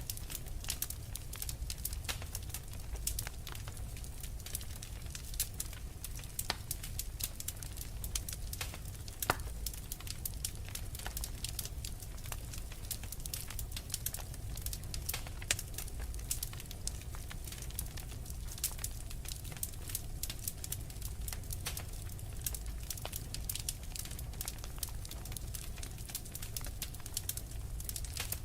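Wood fire in a fireplace crackling, with many small irregular pops and snaps over a low steady rumble of the flames, and a few louder pops.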